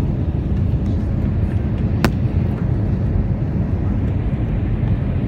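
Steady low rumble of an Airbus A320's engines and airflow heard inside the passenger cabin during descent, with a single sharp click about two seconds in.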